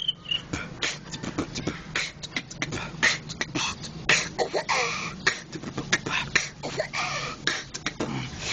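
Human beatboxing: a steady beat of mouth-made kicks, snares and clicks, with throaty pitch-gliding effects about halfway through and again near the end. It is an example beat built around the beatboxed cricket sound and the Ball Zee effect.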